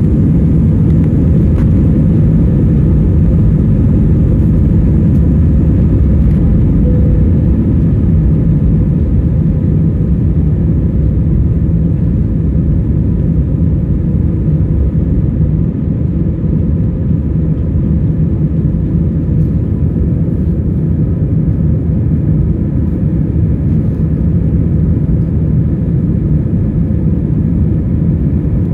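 Passenger jet airliner taking off: a loud, steady engine rumble with faint steady tones above it, easing a little in level about ten seconds in.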